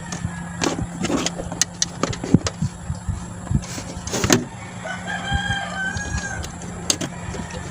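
A rooster crowing once, a long held call about five seconds in, over scattered clicks and knocks and a steady low hum.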